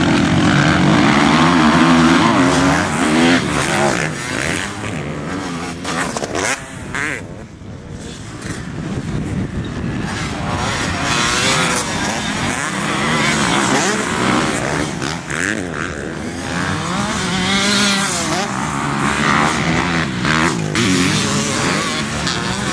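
Several motocross bikes racing past on a dirt track, their engines revving up and down as the riders accelerate through a bend. Loudest in the first few seconds, fading briefly about a third of the way in, then building again as more bikes come through.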